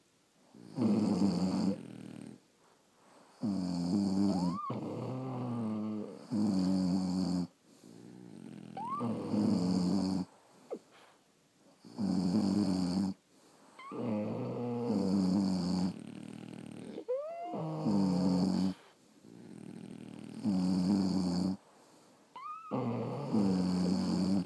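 Sleeping French bulldog snoring: a run of rasping, buzzing snores one to two seconds long with short pauses between them, several ending in a squeaky whistle that rises in pitch. The snoring is typical of the breed's short, narrow airway.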